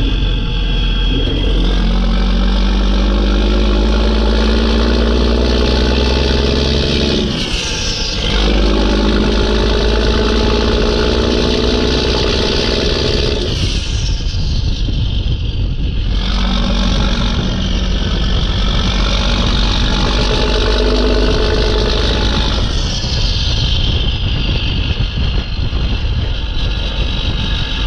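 Mack E7 inline-six turbo diesel pulling up through the gears, its pitch climbing in each gear. It drops off at three gear changes, about a third of the way in, halfway and near the end, and each time the turbo whistle winds down in pitch.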